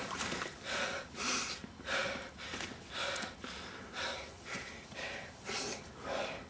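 A person breathing hard through the mouth, quick even breaths about two a second, out of breath and overheated.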